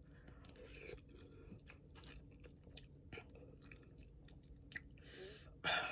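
A person chewing noodles, faint small wet clicks and smacks, with a louder noisy burst near the end.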